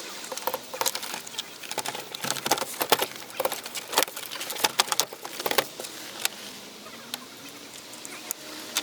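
Car door trim and plastic parts being handled and fitted by hand: irregular clicks, taps and light knocks, some sharper than others.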